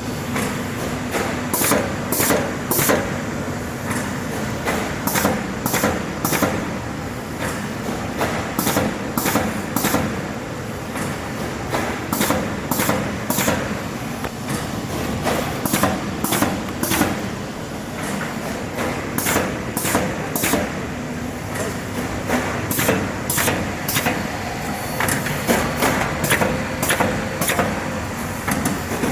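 Automatic carton partition assembler machine running: a steady mechanical hum with frequent sharp clacks, about two a second and not quite even, from its slotting and inserting mechanism.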